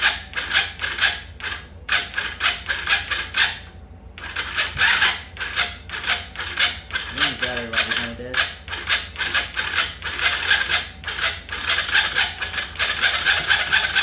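Electric starter on a TaoTao 125cc single-cylinder ATV engine cranking it over in several bursts, a rapid clatter of about five pulses a second. The engine doesn't fire because no carburetor is fitted. The new starter turns the engine over where the old one only clicked.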